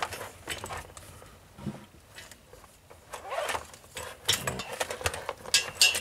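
Cables and plugs being handled and moved about under a desk, with scattered small clicks and rustles that come thicker in the second half.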